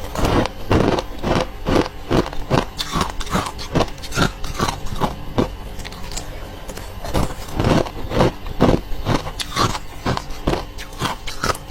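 Close-miked crunching of frosty freezer ice being bitten and chewed: a rapid run of sharp crunches, about two or three a second.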